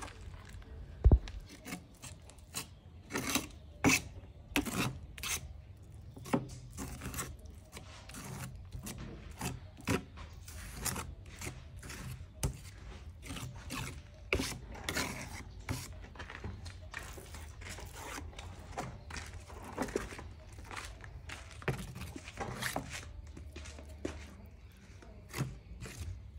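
Hand tile work: irregular scraping and short knocks of tools against tile and mortar, at uneven intervals, over a faint steady low hum.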